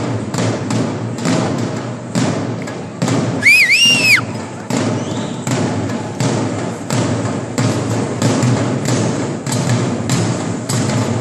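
Troupe of drummers beating a steady, driving rhythm on drums, about three strokes a second. Around three and a half seconds in, a shrill two-note whistle rises and falls above the drumming.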